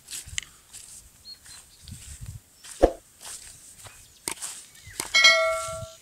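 Footsteps on a snowy dirt path, with a single knock about halfway through. Near the end comes a loud metallic clang that rings on in several tones for just under a second.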